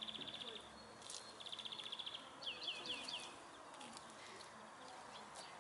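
A small songbird singing: two rapid high trills, then a quick run of falling chirps, over faint outdoor background noise.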